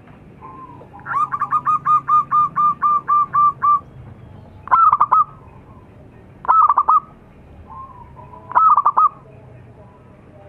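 Zebra dove (perkutut) calling: a run of about a dozen quick, even cooing notes, then three short staccato cooing phrases spaced about two seconds apart.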